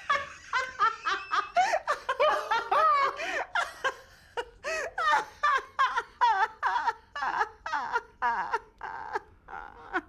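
A man and a woman laughing hard together, in quick pitched bursts that gradually space out and weaken as the laughter dies down.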